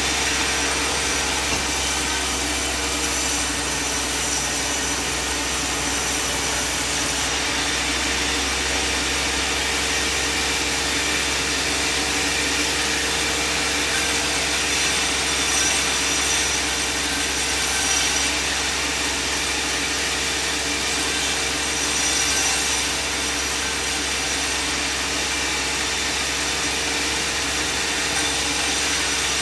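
Band sawmill running steadily, its blade cutting lengthwise through a timber.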